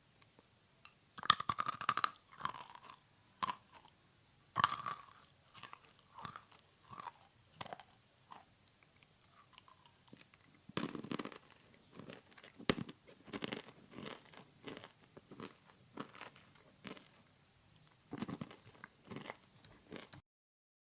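A person chewing crunchy food: irregular crisp crunching bites in clusters, the loudest a little over a second in and near five seconds, stopping shortly before the end.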